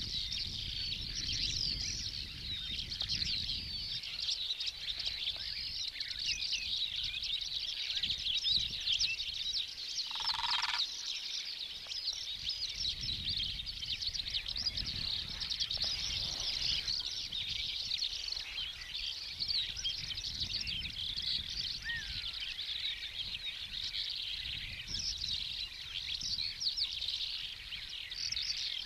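A dense, continuous chorus of high twittering chirps from small birds, with a low rumble underneath. About ten seconds in, one short, lower call stands out briefly.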